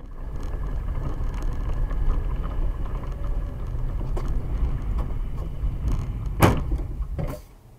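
Car on the move, heard from inside: a steady low rumble of engine and tyres on a wet, slushy road. About six and a half seconds in comes a sharp bang, the loudest sound, with a weaker knock a moment later before the rumble drops away.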